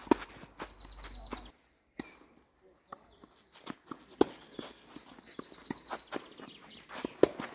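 Tennis rally on a clay court: sharp racket-on-ball strikes, the loudest right at the start, about four seconds in and near the end, with fainter ticks of bounces and footsteps scuffing on the clay between them. The sound nearly drops out for about a second and a half a little after the first strike.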